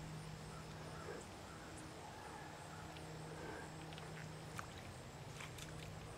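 Quiet outdoor background with a faint steady low hum and a few faint clicks near the end.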